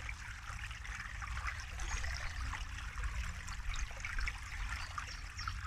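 Water trickling and splashing steadily, as of a small stream, over a low rumble.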